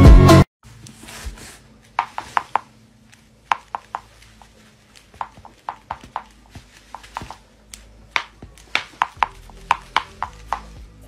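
Electronic dance music cuts off suddenly about half a second in. After it come light, sharp clicks in quick clusters of two to four, every second or so, over a faint low hum.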